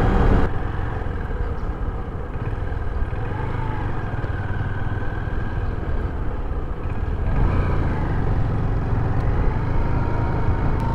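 Motorcycle engine running as the bike rides along, with steady road and wind noise on the mic. The low rumble gets louder about seven and a half seconds in.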